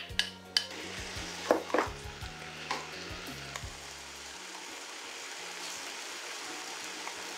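Chopped aged kimchi frying in a pot: a few knocks and scrapes of a wooden spoon and glass bowl in the first two seconds as it goes in, then a steady sizzle as it is stirred.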